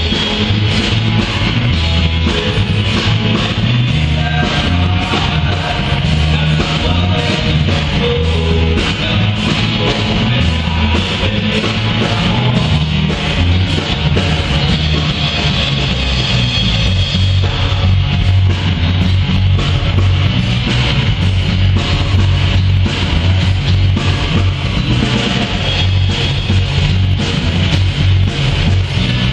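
Live band playing a rock-style song: electric guitars over bass and a steady beat.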